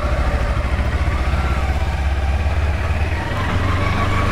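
Kawasaki Versys-X 300's parallel-twin engine running as the motorcycle is ridden, under a steady heavy low rumble of wind on the camera microphone.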